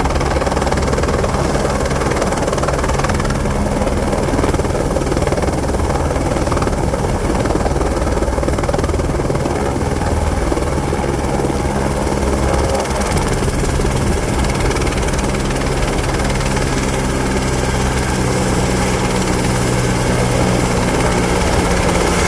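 Helicopter running with a loud, steady rotor and engine noise and a low hum, unbroken throughout.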